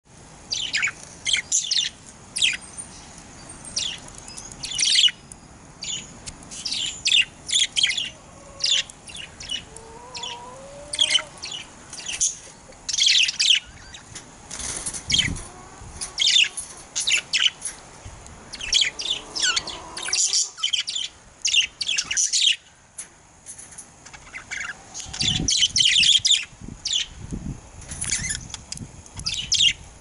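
Male budgerigars chattering: a quick, irregular run of short high chirps and clicks, with a few faint lower whistled glides.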